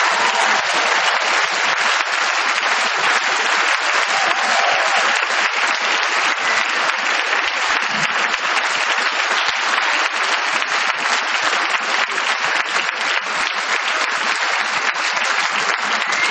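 Circus audience applauding steadily, a dense clapping without a break.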